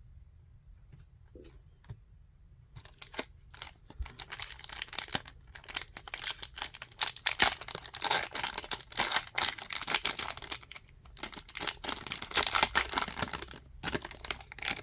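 Foil trading-card pack wrapper crinkling and tearing as it is opened, with cards being handled. It starts about three seconds in and goes on in dense crackles with short pauses.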